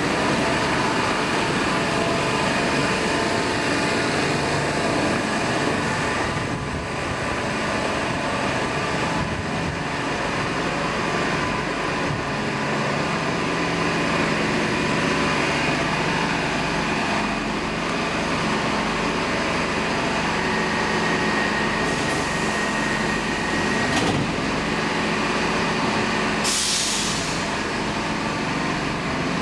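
A Stockholm Metro C14 train standing at the platform, its onboard equipment humming steadily. Near the end there is a short burst of hissing compressed air.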